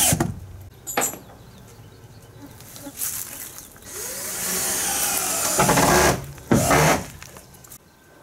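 Power drill fastening the wooden wall panels of a shed under construction. A run ends just after the start, a longer run follows in the middle, and two short bursts come near the end.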